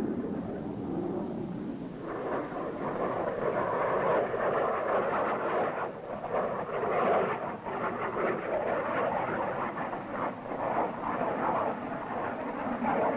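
Jet engine roar of F-4 Phantom fighter-bombers in flight, a steady rough rushing noise that grows fuller about two seconds in.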